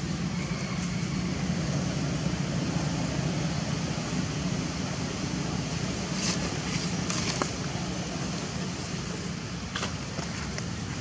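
Steady outdoor background rumble and hiss, with a few faint brief clicks about six to seven seconds in and again near the end.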